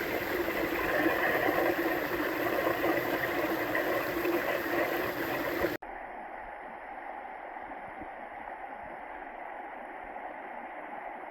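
Stream water rushing and gurgling over rocks, loud for about the first six seconds, then after a sudden cut it flows on more quietly.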